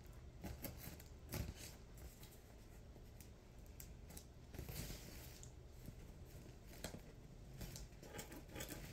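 A cardboard shipping box being opened by hand: faint scraping, tapping and rustling of tape and cardboard, with a longer scrape about five seconds in.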